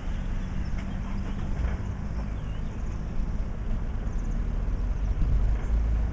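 Vehicle engine running at a steady low rumble while driving through shallow floodwater on the road, getting a little louder near the end.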